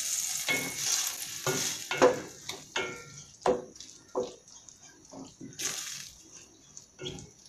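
Wooden spatula stirring sliced pork in a stainless steel pot, knocking and scraping against the metal about twice a second over a light sizzle. The strokes grow fainter toward the end, and there is one longer hiss about two-thirds of the way in.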